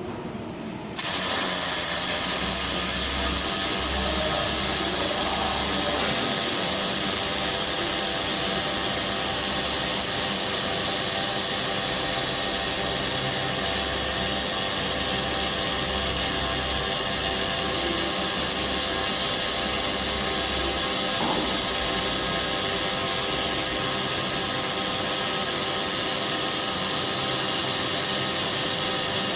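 Steady hiss of an automatic welding arc, starting abruptly about a second in and holding evenly, with a constant machine hum beneath it.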